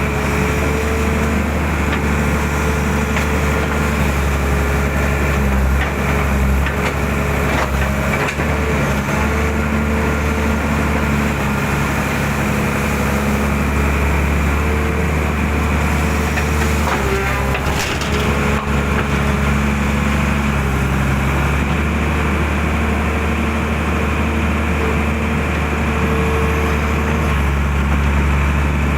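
Excavator's diesel engine running steadily as it works, its note shifting briefly partway through, with scattered sharp knocks and cracks.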